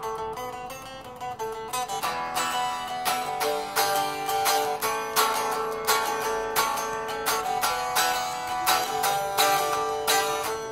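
Solid-body electric guitar with a clean tone, notes picked in a quick repeating pattern over one steady held note. The playing grows louder and busier about two seconds in.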